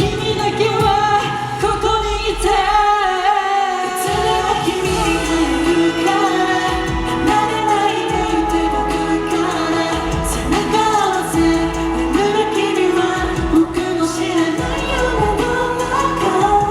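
Japanese-language pop song by a boy group: sung lead vocals over a full backing track with a steady beat.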